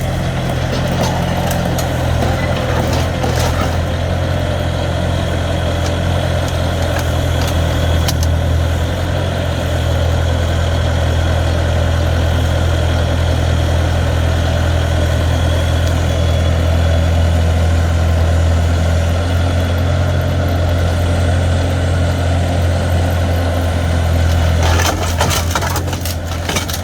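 Bobcat T300 skid steer's Kubota diesel engine running steadily, with a burst of sharp clatter near the end.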